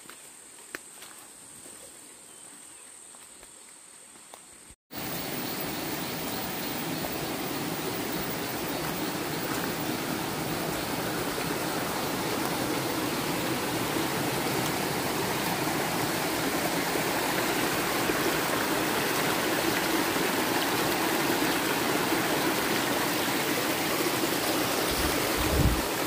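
A faint, steady, high-pitched insect buzz, then about five seconds in an abrupt cut to loud, steady rushing water that slowly grows louder.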